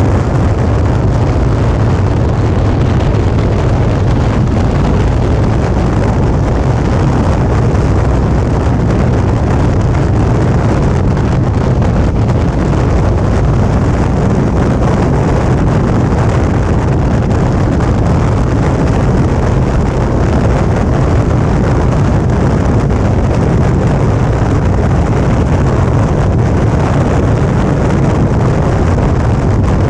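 Steady rush of wind over the camera microphone on a moving motorcycle, with the Suzuki V-Strom 650's V-twin engine running at an even cruising speed underneath. The sound holds constant without a break.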